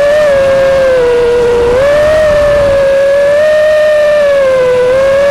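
FPV racing quad's Dragonfly Hurricane 2207 KV2500 brushless motors spinning three-blade 5-inch props, a loud steady whine heard from the onboard camera. The pitch dips and climbs again a few times as the throttle changes.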